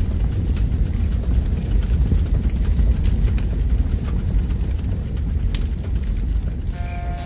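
Deep, steady low rumble of a cinematic sound effect, with a few faint crackles. A brief pitched buzz comes in near the end.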